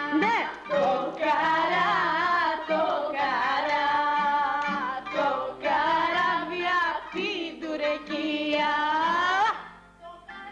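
A song sung on stage over a plucked-string accompaniment, the voice ending on a long held note that stops abruptly about a second before the end, leaving quieter playing.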